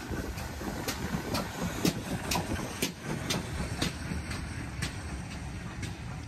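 Steam-hauled passenger train passing at a steady speed: a low rumble with the wheels clacking over the rail joints about twice a second.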